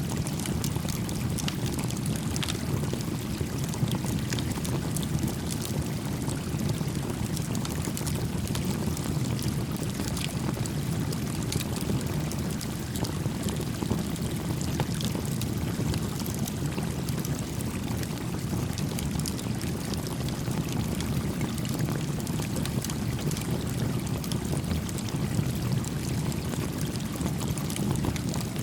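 Steady rush of a gently flowing stream, with a small campfire crackling: scattered faint sharp pops over the water.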